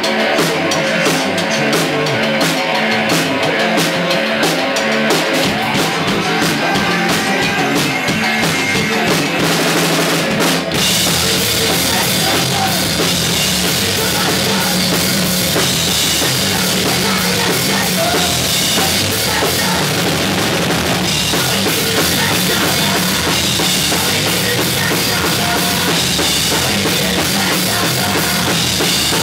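Live rock band playing loudly on electric bass guitar and drum kit. About ten seconds in the band comes in fuller, with a much heavier low end.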